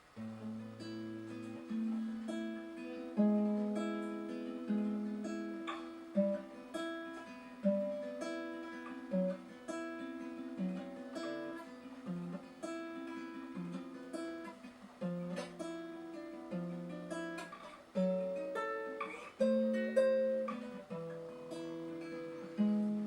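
Acoustic guitar playing a slow, picked introduction to a song: single notes and chord tones plucked one after another, each left to ring.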